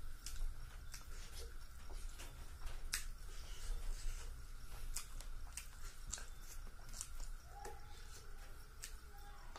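Eating sounds of rice and fish curry eaten by hand: chewing and mouth clicks, with fingers working the rice on a banana leaf in between. The clicks are sharp and scattered, over a faint steady hum.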